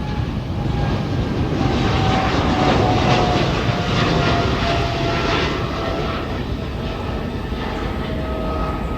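Jet airliner's engines passing close by: a loud rush that swells to its peak about three seconds in and then eases, with a whining engine tone that slowly falls in pitch.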